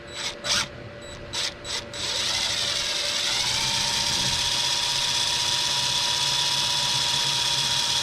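Power drill driving a screw into the boat floor: a few short blips in the first two seconds, then the motor runs steadily, its whine rising and settling to an even pitch.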